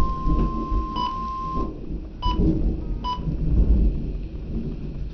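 NOAA Weather Radio warning alarm, a steady tone near 1 kHz, cuts off about a second and a half in, followed by three short beeps at the same pitch, over a constant low rumble.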